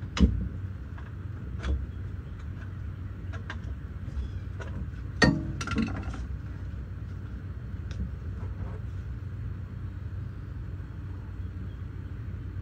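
A few sharp clanks and clicks of hand tools and hose clamps being handled during coolant-hose work on a semi truck, the loudest about a quarter second in and about five seconds in, over a steady low rumble.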